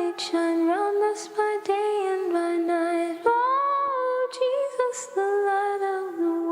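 Unaccompanied voice humming a wordless melody in held notes, with short breaths between phrases and a slight waver on the last note.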